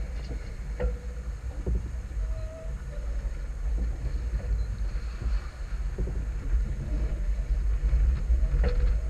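Wind buffeting the microphone aboard a sailboat under sail, a steady low rumble that swells and eases, mixed with the rush of water along the hull.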